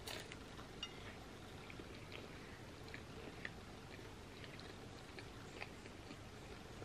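Close-miked chewing of a mouthful of quesadilla: faint soft, wet mouth clicks and smacks a few times a second, with a brief louder noise right at the start.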